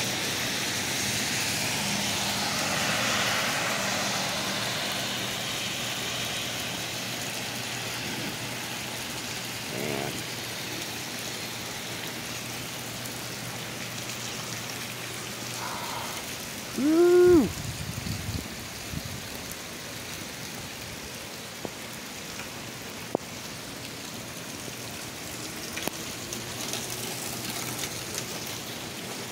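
Steady heavy rain falling on pavement, a hiss that is louder over the first few seconds and then settles. About halfway through there is one short pitched sound that rises and falls.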